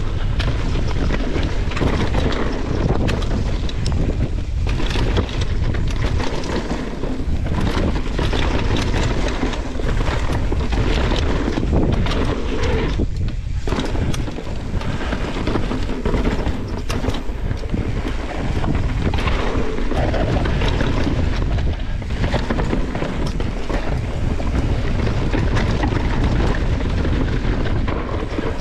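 Wind buffeting the microphone of a mountain bike ridden fast down a dry dirt trail, with the tyres rushing over the dirt and the bike knocking and rattling over bumps. The noise eases briefly about halfway through.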